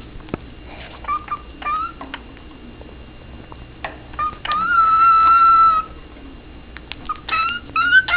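A male pet bird whistling a song to the female. There are short rising chirps about a second in, one long steady whistled note in the middle, and more chirps near the end.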